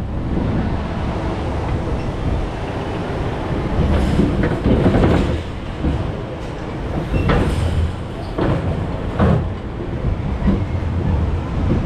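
Maurer spinning coaster car running along its steel track, a steady wheel rumble broken by a string of sharp knocks and clunks, as it returns toward the station at the end of the ride.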